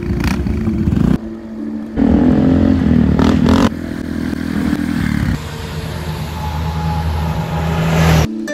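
A string of short motorcycle and scooter engine clips spliced together, cutting abruptly every second or two: a wavering rev partway through, then a Honda NT700V V-twin motorcycle growing steadily louder as it approaches and passes.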